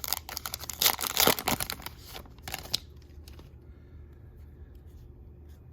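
Plastic foil wrapper of a trading-card pack being opened and crinkled, a dense crackling for the first three seconds, then only faint room tone.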